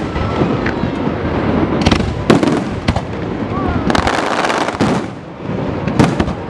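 Aerial fireworks shells bursting overhead: a run of loud bangs, roughly one a second and some in quick pairs, over a continuous dense crackle from the bursting stars.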